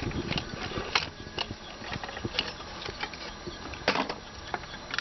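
Scattered metal clicks and knocks from hand tools and parts being handled while the carburetor is unbolted from the engine, with one sharper knock near the end.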